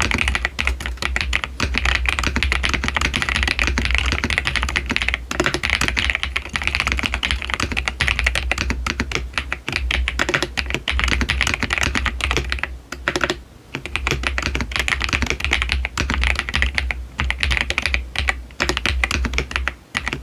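Fast, continuous typing on a Royal Kludge RK R75 mechanical keyboard, its keys clacking in a creamy, dense patter. The typing breaks off briefly three times: about five seconds in, for about a second around the middle, and just before the end.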